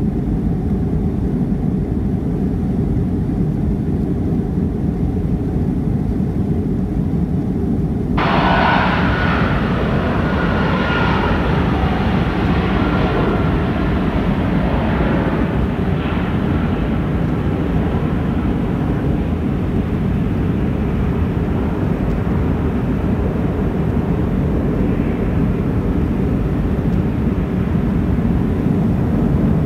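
Boeing 757-200 jet engines, Rolls-Royce RB211s, at takeoff power: a steady deep rumble through the takeoff roll and climb-out. About eight seconds in, a brighter, higher jet noise cuts in suddenly, then fades back into the rumble.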